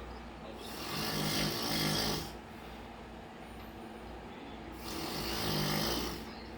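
A man snoring loudly: two long snores about four seconds apart, each lasting about a second and a half.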